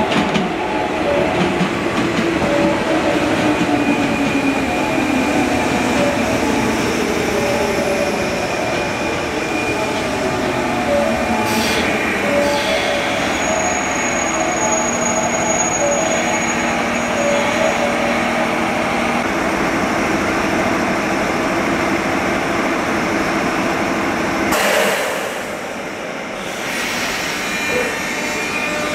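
JR West 201 series armature-chopper electric train arriving at a platform and braking. Its motor and chopper whine falls in pitch as it slows, and there is some wheel squeal. The running sound drops away about 25 seconds in.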